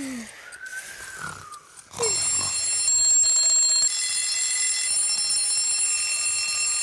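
Several cartoon alarm clocks ring together, starting suddenly about two seconds in and going on steadily. Before that come soft rising-and-falling whistles of a sleeper's cartoon snore.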